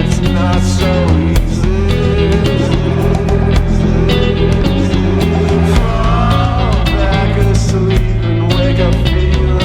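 Psychedelic rock music: a band recording with guitar over sustained bass notes and drums. The bass moves to a new note about six seconds in.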